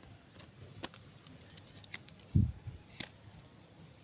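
A small knife paring and scraping at the cut trunk of a sligi bonsai, giving a few faint short clicks and scrapes, with one louder low thump about two and a half seconds in.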